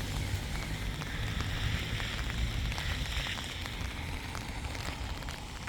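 Steady outdoor noise: a low rumble on the microphone with a hiss over it and many scattered faint ticks.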